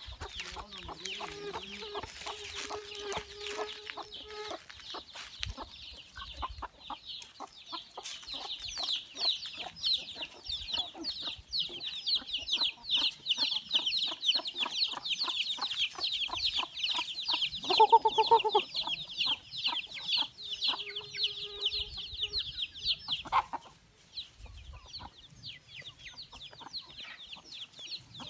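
A flock of chickens calling, with dense, quick, high-pitched peeping for most of the stretch and one louder, lower call partway through. The high calling dies down a little before the end.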